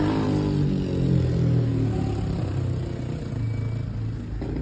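A motor vehicle's engine running close by, a low hum that wavers slightly in pitch and fades after about three seconds.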